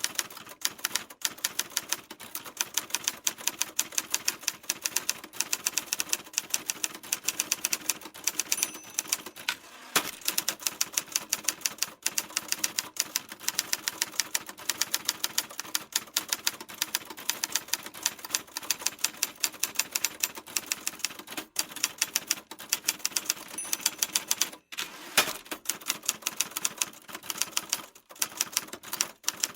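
Typewriter keys being typed at a steady, quick pace, about five or six sharp clacks a second, with brief pauses twice.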